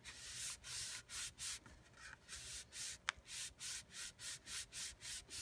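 A hand rubbing back and forth over a sheet of cardstock, soft dry brushing strokes about two to three a second, pressing the paper down onto an inked rubber background stamp to take the print.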